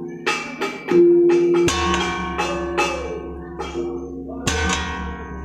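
Gamelan bronze instruments struck one note at a time at an irregular pace, each stroke ringing on, played haphazardly rather than as a set piece. A low drone joins about a third of the way in.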